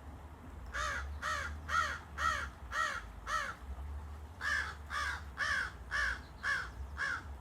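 Crows cawing in a rapid series of about two caws a second: a run of six, a short pause about three and a half seconds in, then another run of caws.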